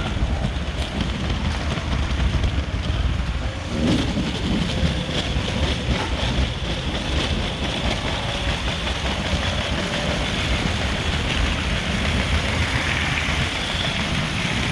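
LEGO toy train running on its plastic track: a steady motor hum and rolling rumble.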